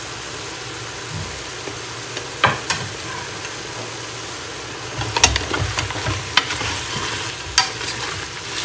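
Mutton and onions sizzling in oil in an aluminium pressure cooker while a wooden spoon stirs them, clacking against the pot now and then. The sizzle and stirring grow louder about halfway through as the fresh garlic-ginger paste is worked in.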